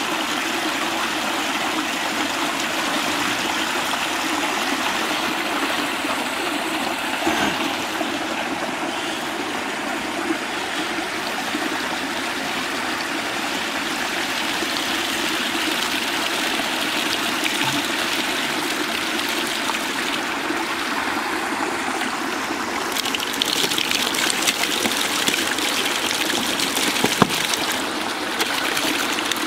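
Steady rush of water flowing through a narrow gap in a small earthen canal bank, brighter and splashier in the last few seconds.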